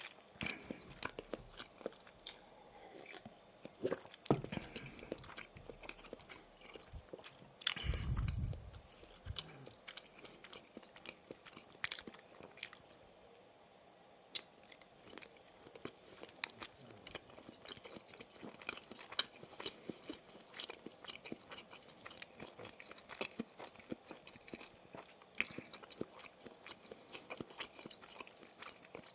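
Close-miked chewing and biting of Maxbong snack sausage sticks: a steady run of small wet clicks and crunches. A louder low thud comes about eight seconds in, and a sharp click just after fourteen seconds.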